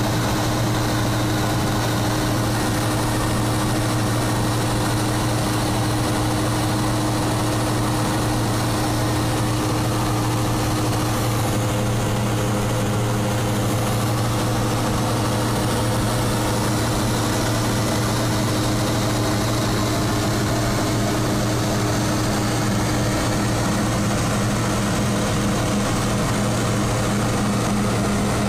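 Cessna 172's piston engine and propeller droning steadily in cruise flight, heard from inside the cabin.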